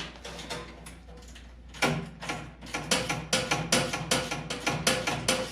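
Ratchet clicking rapidly as nuts are run down onto caster bolts. It starts faint and gets louder and denser about two seconds in.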